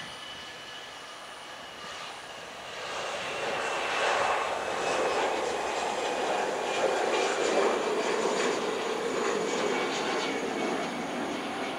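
Airbus A320's twin jet engines at takeoff power as it lifts off and climbs out. The jet roar swells about three seconds in, stays loud, and starts to fade near the end. A faint high whine slides slowly down in pitch as the aircraft passes.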